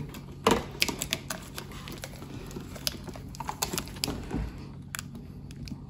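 Irregular light plastic clicks and taps as the small plastic hinge clip of a refrigerator door flipper assembly is handled and worked into its slot on the door, the sharpest click about half a second in.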